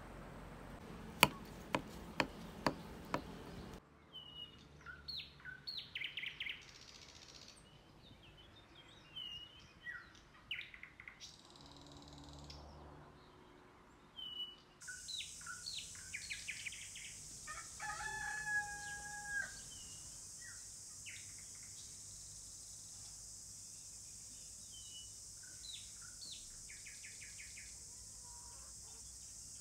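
About five sharp taps at the start as hands press and pat the crisp, sesame-topped crust of a baked loaf. Then comes rural outdoor sound: birds chirping throughout, a rooster crowing once about 18 seconds in, and a steady high-pitched insect drone that sets in suddenly midway.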